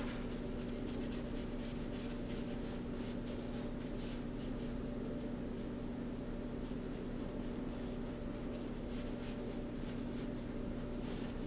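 Palette knife dabbing and scraping paint onto a cardboard panel: a run of short, irregular scratchy strokes over a steady low hum.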